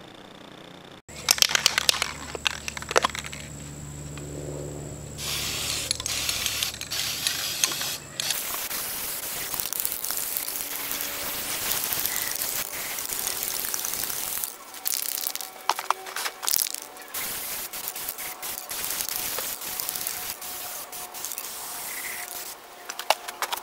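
Aerosol spray paint can hissing in long sprays as paint goes onto the forge's steel shell, pausing briefly a few times. Sharp clicks and rattles sound in the first few seconds, before the spraying starts.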